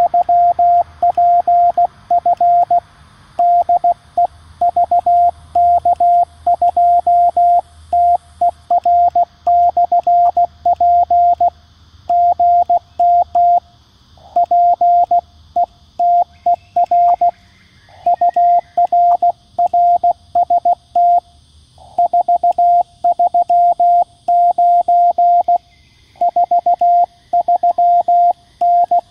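Morse code sidetone from a QRP Labs QCX-mini CW transceiver: a single tone of about 700 Hz keyed on and off at about 16 words per minute, with short pauses between groups. It sends the calls "VK3PF DE VK2TER/P" and then a signal report, "GM PETER UR RST 439".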